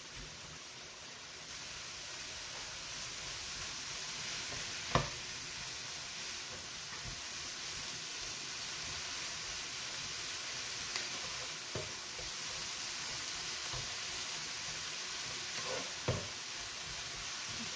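Grated carrot and onion sizzling in butter in a nonstick frying pan, the sizzle picking up a second or so in as it is stirred with a spatula. A few knocks of the spatula against the pan, the loudest about five seconds in.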